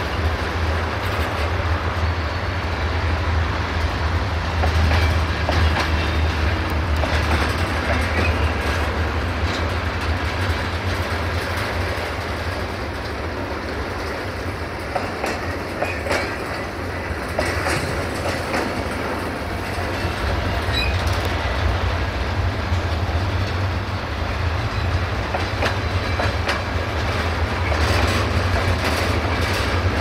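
Freight train of covered hopper wagons rolling past, steel wheels clattering over the rail joints, over a steady low rumble.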